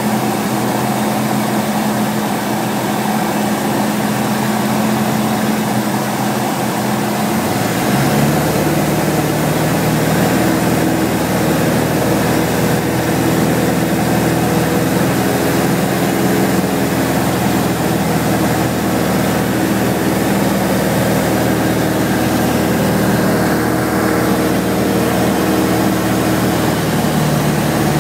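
Robin DR400 light aircraft's 108 hp four-cylinder engine and propeller droning steadily in flight. The engine note changes about eight seconds in, then holds steady.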